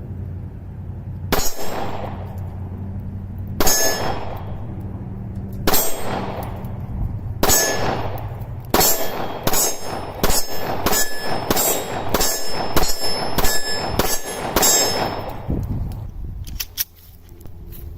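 Handgun shots fired at a steel plate target, each shot followed by the ringing clang of the plate. Four shots come about two seconds apart, then a faster string of about a dozen, roughly two a second.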